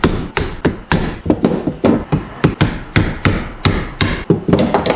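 Hammer striking a blade or punch against a driveshaft U-joint yoke in quick, irregular blows, about three a second, to drive out the U-joint retaining clips.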